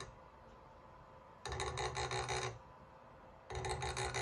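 Stepper motor driving a small motorized turntable in short moves, a buzzing whine with a rapidly flickering pitch. The moves last about a second each: one starts about a second and a half in, the next about three and a half seconds in. A faint steady electrical hum sits between them.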